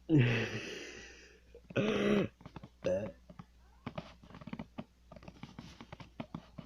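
A loud, deep burp right at the start that trails off over about a second, then a second, shorter burp about two seconds in and a brief voiced sound a second later. After that comes a string of small clicks and taps.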